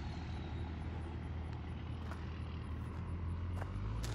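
Low, steady rumble of a truck engine, dropping away near the end, with a couple of faint clicks.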